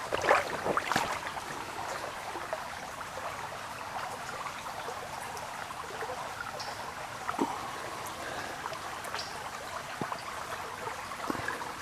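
Shallow water running and trickling over rocks. A few brief clicks come in the first second and again about seven seconds in.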